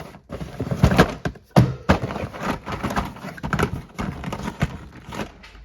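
Irregular knocking, clattering and rustling of Christmas-light clips and other items being handled and pushed into a storage box, with several sharp knocks.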